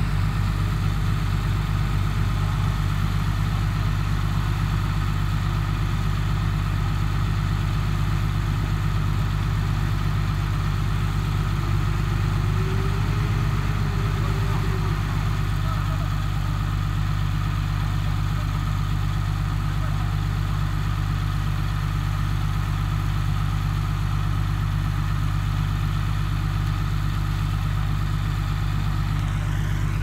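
Heavy diesel engine of a bulldozer or dump truck running steadily at idle, low and even, with no revving.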